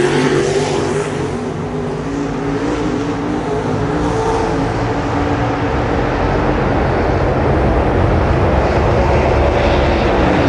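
Dirt late model race cars' V8 engines at racing speed on a dirt oval. One car passes close at the start, then the field's engines drone on from around the track, building again in the second half as the cars come back around.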